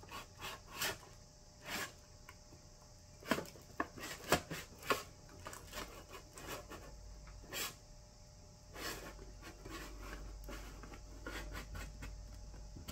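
Hands pushing wires down into a metal battery box and sliding its metal lid shut: irregular clicks, knocks and rubbing, the loudest knocks a few seconds in.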